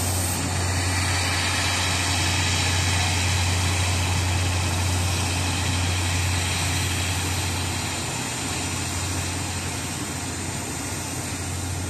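Slow-moving train departing, its coaches rolling past with the steady low hum of a trailing DE10 diesel locomotive's engine, which weakens about eight seconds in.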